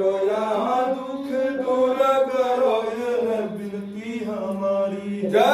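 A man's voice chanting Sanskrit mantras for a Rudrabhishek to Shiva, in long held notes that slide from pitch to pitch with no break, a new phrase starting near the end.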